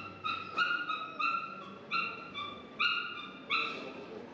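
A dog yipping over and over: short, high-pitched cries about two to three a second, some pitched slightly higher and some lower.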